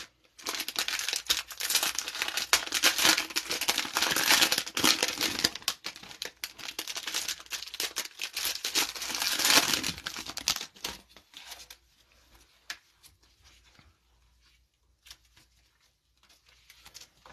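Plastic cello-pack wrapper of trading cards crinkling and tearing as it is ripped open by hand, for about ten seconds. Near the end, faint ticks of the cards being handled.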